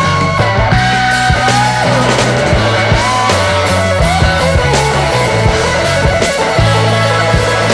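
Background rock music with guitar, a steady bass and drum beat and a sliding lead melody.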